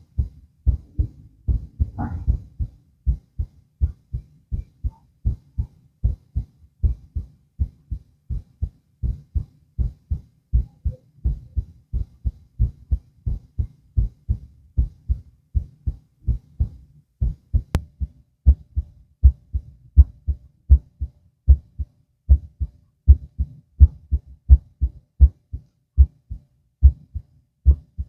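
Human heartbeat heard through a stethoscope on the chest: a steady, even rhythm of paired low beats. There is a brief rustle about two seconds in.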